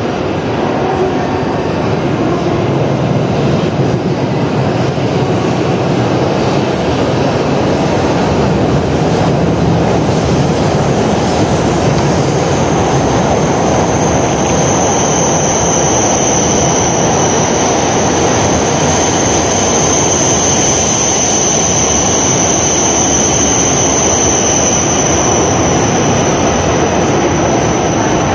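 12-car Shinkansen train pulling out and picking up speed past the platform: a steady rumble of wheels and running gear. A high, thin whine comes in about halfway and holds until near the end.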